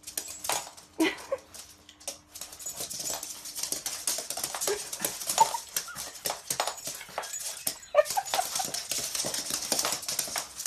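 A pug's claws clicking and scrabbling on a hardwood floor as it darts after a laser dot, with a few short whines.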